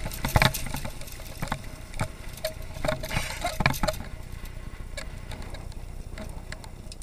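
Honda Cub 110 Pro ridden over a rutted dirt track, heard from a helmet-mounted camera: a steady low rumble of engine and wind, with repeated knocks and rattles as the bike jolts over bumps. The knocks are busiest in the first four seconds, then the ride goes smoother.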